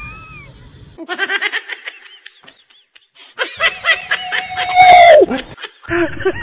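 Laughter in two bursts of quick, high 'ha-ha' sounds. The second burst turns into a loud held cry that slides steeply down in pitch just after the fifth second.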